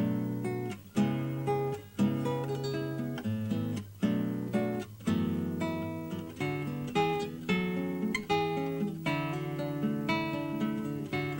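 Acoustic guitar music: fingerpicked and strummed chords with a sharp attack roughly every second.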